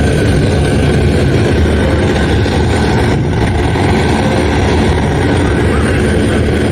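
Aircraft engine noise: a loud, steady low rumble with a faint high whine held above it.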